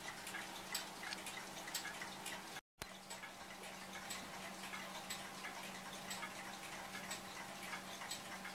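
A mechanical clock ticking with steady, even ticks over a faint steady hum. The ticking breaks off for a split second about three seconds in.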